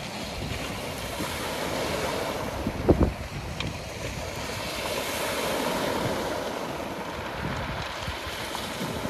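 Small sea waves breaking and washing over a pebble shore, swelling twice, with wind buffeting the microphone. A sharp thump about three seconds in is the loudest sound.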